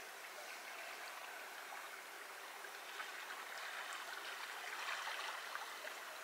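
Shallow, fast-flowing river running over a riffle: a steady, faint rush of water, a little louder about two-thirds of the way in.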